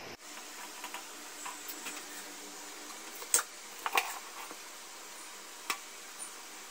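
Steamed rice flour being tipped out of a cloth into a steel bowl: a few sharp clicks and knocks against the bowl, the loudest about three and a half and four seconds in, over a steady faint hiss.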